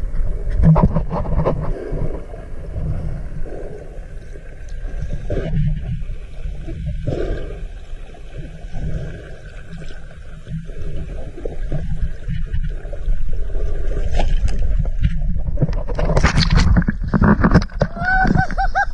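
Muffled underwater rumble and water noise from a camera held below the surface. Near the end it turns into loud splashing as the camera breaks the surface and a gaffed mahi-mahi thrashes in the water.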